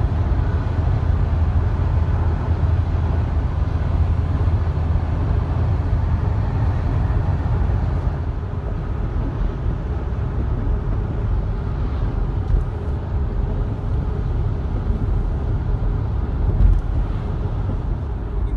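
Steady low rumble of a car driving on the road, engine and tyre noise heard from inside the cabin.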